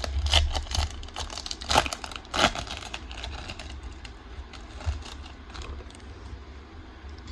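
Foil trading-card booster pack crinkling and tearing open: a quick run of sharp crackles in the first few seconds, loudest about two seconds in, then lighter rustling and clicks as the pack and cards are handled.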